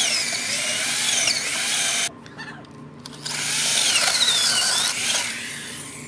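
Cordless drill running into a wooden fence post and board, its motor whining under load in two runs: one of about two seconds, then a second starting about three seconds in after a short pause.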